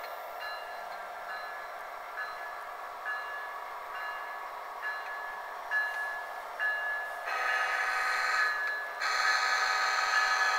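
Model diesel locomotive sound decoder through a small on-board speaker: a locomotive bell ringing in even strokes about once a second. About seven seconds in, two long horn blasts come in over it, the second running past the end and louder than the bell.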